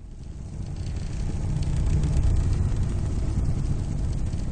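A steady, low rumbling rush of noise that fades in over about the first two seconds, then holds.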